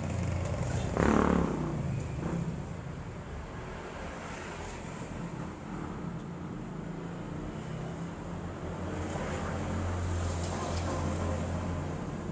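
Road traffic passing: a steady low hum of engines, with one vehicle going by close about a second in, its pitch falling as it passes.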